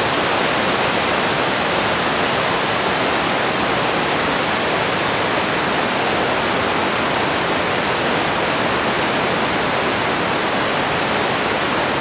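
Waterfall cascading over rock ledges: a steady, even rush of falling water.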